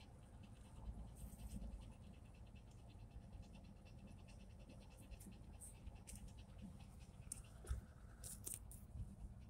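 A dog panting fast and evenly in the heat, faint, over the low rumble of a slowly moving car.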